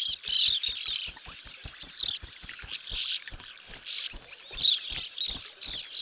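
Sand martins twittering at their burrow colony: a busy, unbroken stream of short, high chirps from several birds at once.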